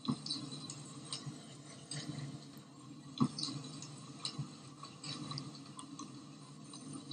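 Handling noise of a phone recording: scattered clicks, knocks and rustling of clothing against the phone over a low steady hum, with one sharper knock about three seconds in.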